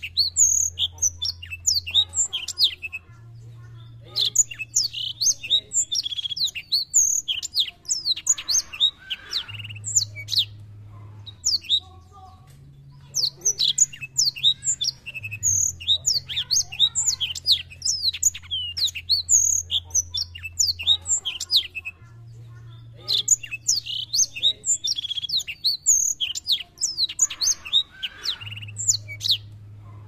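Black-throated canary (black-throated seedeater) singing a fast, high-pitched twittering song in runs of several seconds with short breaks between them.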